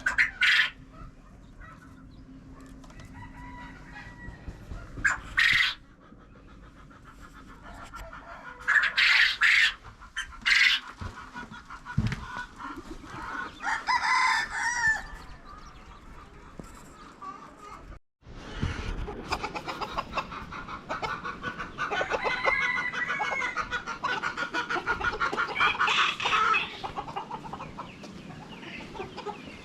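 Chickens squawking and clucking, with a rooster crowing about halfway through. After a brief dropout there is a long stretch of busy clucking.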